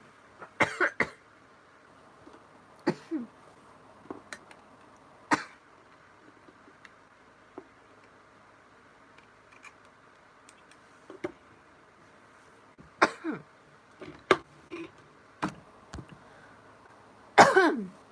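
A young woman coughing and clearing her throat in about a dozen short, scattered bursts, some with a falling vocal pitch. The loudest comes near the end.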